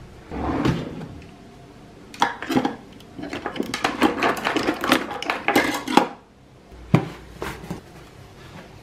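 Stainless steel cutlery clinking and clattering in a plastic drawer tray as a hand rummages through it, in a dense run of sharp clinks for about four seconds. A couple of knocks follow near the end.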